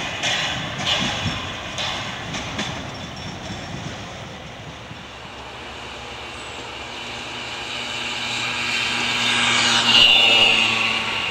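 Narrow-gauge steam train of the Rügen line, locomotive 99 784: first the coaches rolling away with a run of clicks over the rail joints, then the locomotive approaching and growing steadily louder, with a high squeal near the end.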